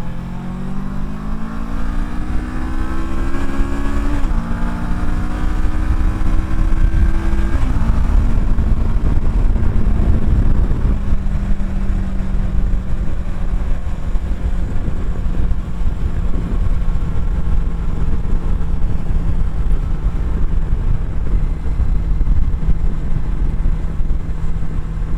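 Kawasaki Versys 650's parallel-twin engine accelerating through the gears. The note rises, drops at a shift about four seconds in, rises again, drops at another shift at about seven and a half seconds, then holds steady at cruising speed.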